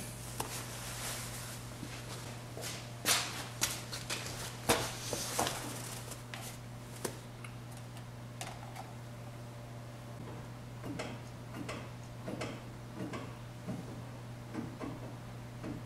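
Scattered light clicks and small knocks of hands and a tool working a brake bleeder screw and its bleed hose during brake bleeding, busiest in the first half. A steady low hum runs underneath.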